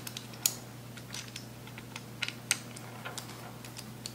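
Light, irregular metallic clicks and ticks of a small Torx screwdriver working a screw out of a folding knife's handle, the sharpest about half a second in.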